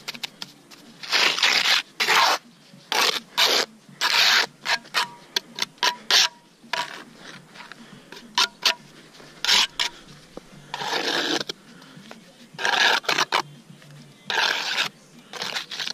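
Irregular series of short, harsh scraping strokes, over a dozen in all, of a tool working against gritty masonry material.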